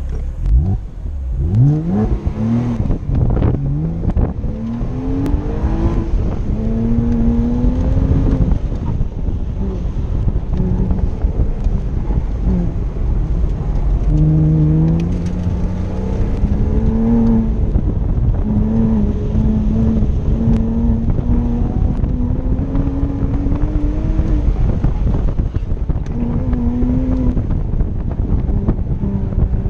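Porsche Boxster's flat-six engine pulling hard from a standing start, its pitch climbing steeply, then rising and falling with sudden drops at gear changes as the car accelerates and slows. Heard from inside the open-top cabin, with wind rumbling on the microphone.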